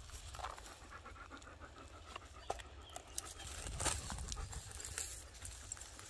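A German shepherd panting close to the microphone, with scattered light clicks and crackles in the dry leaves.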